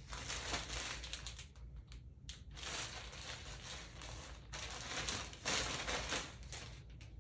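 Rustling and crinkling of clothes being handled, in three bursts of a second or two each.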